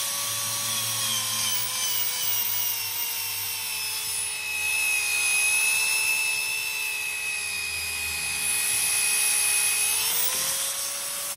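Electric facing tool of a Ritmo butt fusion machine running, its rotating cutter disc shaving the ends of the clamped plastic pipe. The motor's whine sags a little in pitch as it works, rises back about ten seconds in, and then cuts off.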